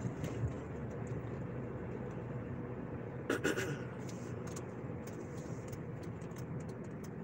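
Steady road and engine hum heard from inside a moving car's cabin, with one short louder sound about three seconds in.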